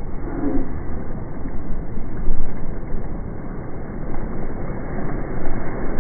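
Wind buffeting the microphone: a loud, gusty rumble that swells and dips every second or so.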